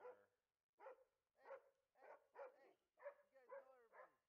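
A dog barking over and over, faintly, about twice a second.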